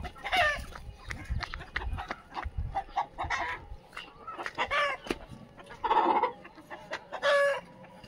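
Free-range desi chickens clucking, with about five short pitched calls spread across the few seconds and light taps in between.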